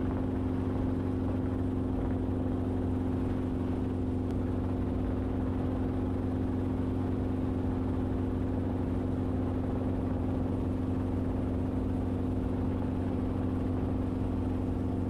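Enstrom helicopter in steady cruise, heard from the cockpit: an even engine-and-rotor drone with a few constant held tones and no change in pitch.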